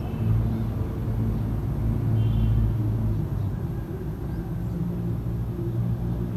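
An engine or motor running steadily with a low hum and rumble.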